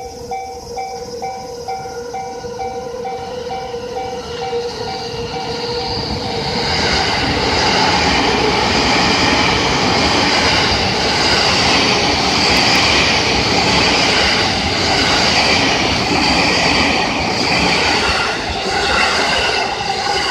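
Yamanote Line electric commuter train passing over a level crossing: its running noise builds over the first six seconds and stays loud until near the end. At the start the crossing's warning bell rings in a steady pulse, about two strikes a second, before the train's noise covers it.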